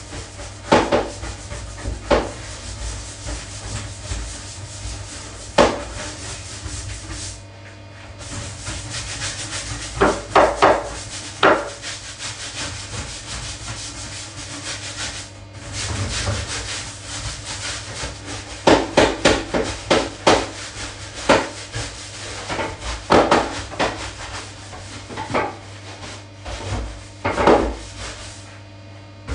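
Rubber-gloved hand scrubbing a glass shower screen and bathroom tiles: a continuous scratchy rubbing with frequent sharper strokes in quick groups, pausing briefly twice.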